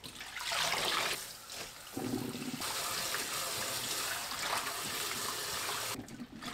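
Tap water running into a stainless steel bowl while hands swish and rinse chamnamul greens, splashing the water. The sound drops away briefly near the end.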